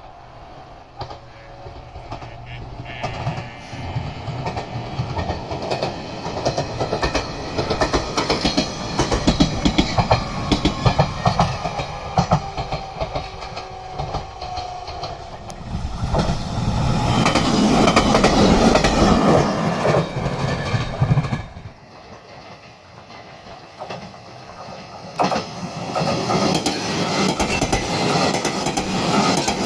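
A train running past on the rails, its wheels clacking over the rail joints and growing louder as it nears. The sound drops suddenly about 22 seconds in, then train running noise builds again near the end.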